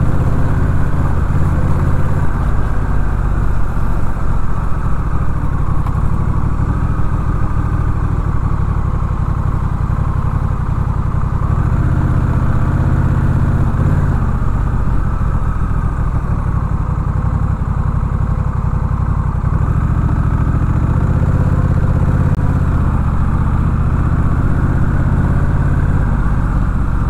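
Honda Rebel 1100 DCT's parallel-twin engine running at low road speed in slow traffic, a low engine note that swells and eases a little with the throttle.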